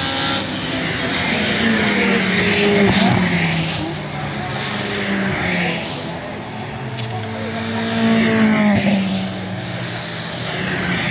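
Sports and saloon racing cars passing one after another at speed, each engine note dropping in pitch as it goes by. The loudest passes come about two to three seconds in and again about eight seconds in.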